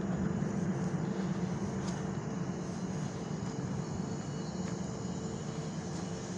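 A steady low mechanical drone with a faint constant hum.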